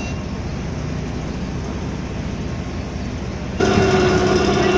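Steady rumble of machinery running. About three and a half seconds in it abruptly gets louder, with a steady drone of several tones over it.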